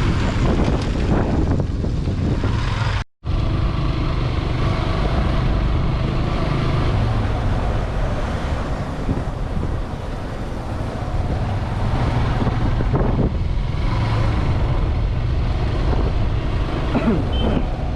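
Motorcycle engine running steadily while riding along the road. The sound drops out for an instant about three seconds in.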